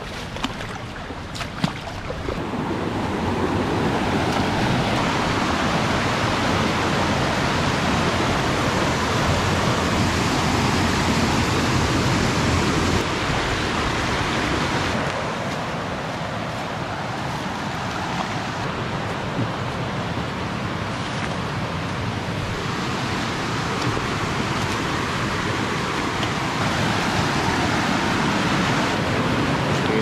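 Steady rush of water running over rocks in a stream, rising in level a couple of seconds in and easing off somewhat for a while midway, with two sharp knocks near the start.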